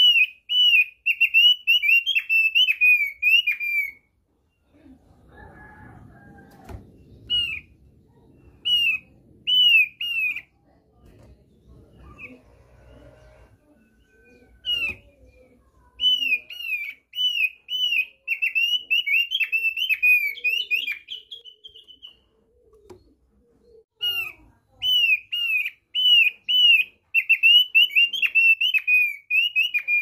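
Thick-billed white-eye (opior paruh tebal) singing: phrases of quick, repeated downslurred whistled notes, each phrase a few seconds long, with pauses between them. Soft low rustling and a knock fill a longer gap near the middle.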